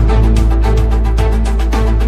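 Background music with a steady, rapid beat over a sustained deep bass.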